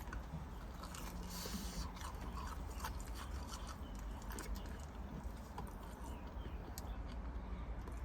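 A person chewing and biting food close to the microphone: scattered small crunches and mouth clicks, with a brief crackle about a second in.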